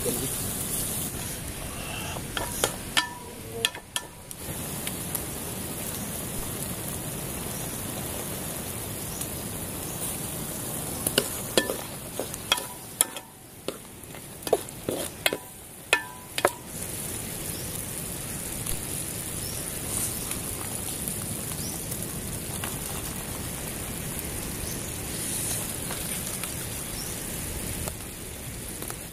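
Chicken feet frying in a blackened pot, a steady sizzle, with a wooden spoon knocking and scraping against the pot in two spells of stirring: around three seconds in and again from about eleven to sixteen seconds in.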